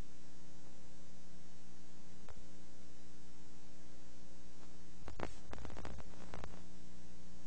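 Steady electrical hum and hiss, with one faint click about two seconds in and a short run of crackles and clicks about five seconds in.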